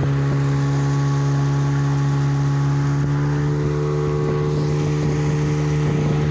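Motorboat engine running at a steady speed, a constant low drone.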